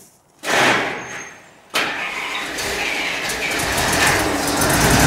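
Aircraft tow tractor's engine starting: a loud first burst that dies away, then the engine catches just under two seconds in and runs steadily, growing slowly louder.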